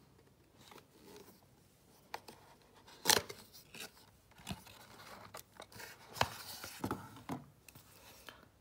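Cardboard carton being opened by hand: a sharp tear about three seconds in as the sealed top flap is pulled open, then scraping and rustling of paperboard as the plastic tube is drawn out of the box.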